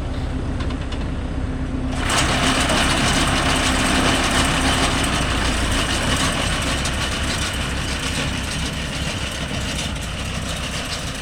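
Mahindra Yuvo Tech Plus 585 tractor's diesel engine idling steadily. About two seconds in, a louder, hissier steady running noise cuts in abruptly and continues.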